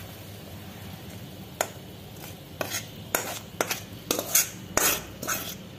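Spoon scraping and knocking against a cooking pan as thick coconut burfi mixture is scraped out onto a steel plate. About ten sharp clinks and scrapes start about one and a half seconds in.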